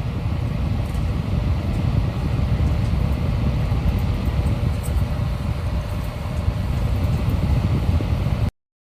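Airflow from a 12-inch USB-rechargeable desk fan blowing onto the microphone: a steady, low, buffeting wind noise that cuts off abruptly near the end.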